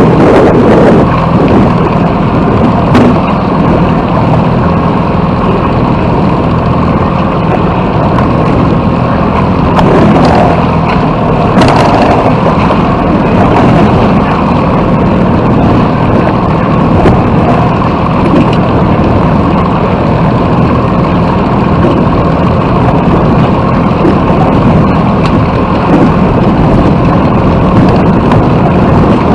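Strong wind buffeting the microphone aboard a small sailboat under sail, a loud, steady rush with a low rumble underneath.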